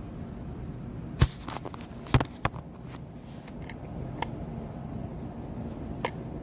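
Ceramic space heater's fan running with a steady hum, with a few sharp clicks or knocks over it, the loudest about a second in and about two seconds in.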